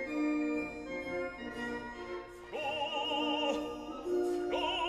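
Operatic singing with orchestral accompaniment. A soprano-range voice enters about halfway with long, wide-vibrato notes, falls away briefly, and comes in again near the end over the held orchestral chords.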